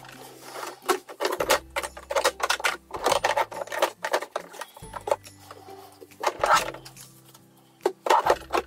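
Background music with a steady bass line, over frequent short clicks and clatters of plastic makeup bottles and tubes being handled and knocked together in a drawer.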